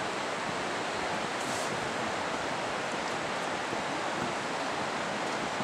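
Running creek water: a steady, even rushing hiss with no breaks or changes.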